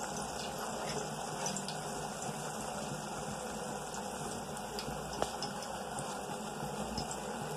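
Maggi noodles simmering in a pot of water on a gas stove burner: a steady rushing noise with small scattered pops of bubbles as the water boils down.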